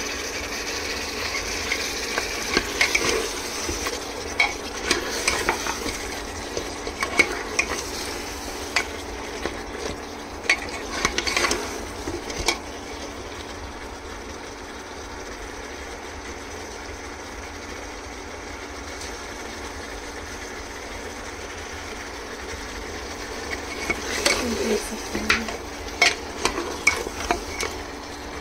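Mutton frying in oil in a cooking pot, a steady sizzle, with a spoon scraping and stirring against the pot in two spells: through roughly the first twelve seconds and again near the end. The meat is being fried down until the oil separates.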